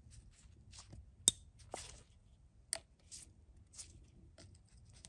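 Light metallic clicks and scrapes of snap-ring pliers working a C-clip out of the bore of a transmission cooler bypass valve housing, scattered and irregular, the sharpest click about a second in.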